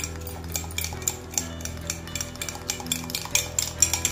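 Metal spoon beating coffee powder, sugar and a little water in a glass tumbler, clinking against the glass in quick, irregular taps that get busier toward the end.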